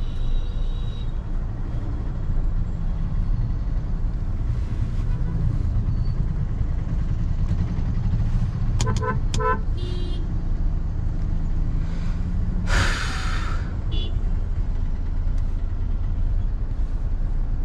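Steady road and engine rumble of a car being driven, heard from inside the cabin, with two short horn toots about nine seconds in and a brief rushing hiss a few seconds later.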